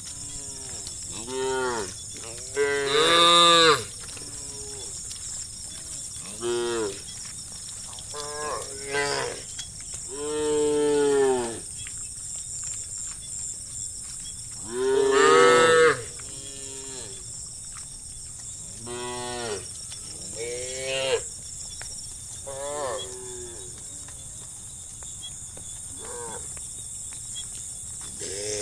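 A herd of cows mooing again and again: about a dozen separate calls that rise and fall in pitch, the loudest a few seconds in and about halfway through, over a steady high-pitched background hiss.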